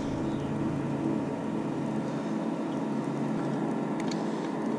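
A steady low mechanical hum, a motor running at an even pitch, with a few faint clicks.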